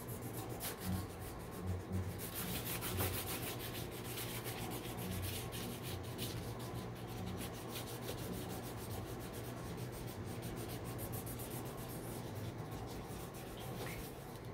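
Marker scribbling on paper, rapid back-and-forth colouring strokes that rub and scratch continuously.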